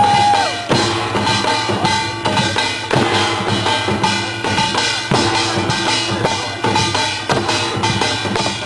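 Korean pungmul percussion ensemble playing a steady, driving rhythm: dense drum strokes with metal gongs ringing over them.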